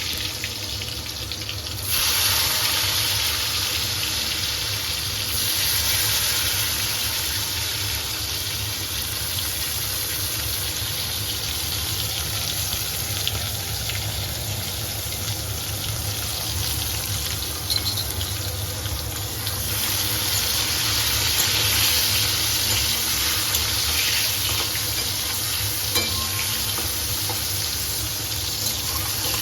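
Eggplant pieces frying in hot mustard oil in a kadai, a steady sizzle that jumps up sharply about two seconds in as the pieces go into the oil, with an occasional light tick of a spatula.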